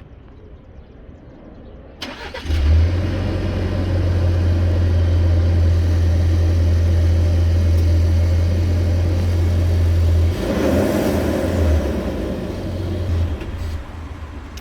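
2020 Ford Ranger's 2.3 L EcoBoost four-cylinder starting about two seconds in and running steadily on its stock exhaust, heard from behind the truck. The exhaust note is so quiet that the engine's cooling fan is louder than the tailpipe. The sound swells and becomes less even from about ten seconds in.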